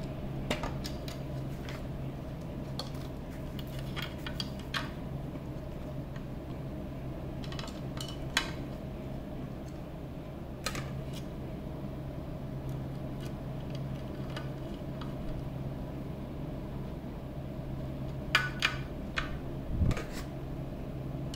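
Small metallic clicks and scrapes of a screwdriver and screw working against a metal chassis panel as a regulator IC is screwed into place, coming in short clusters, with a low thump near the end. A steady low hum runs underneath.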